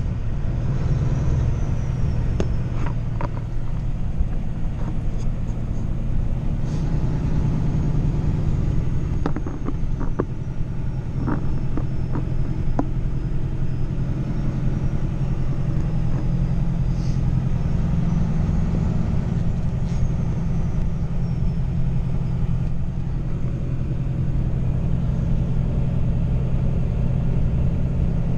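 Pickup truck driving, heard from inside the cab: a steady low engine and road rumble, with a few light knocks and rattles around the middle.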